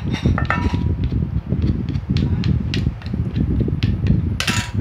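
Knife chopping catfish meat for larb: rapid, continuous knocking of the blade, with a short louder scrape near the end.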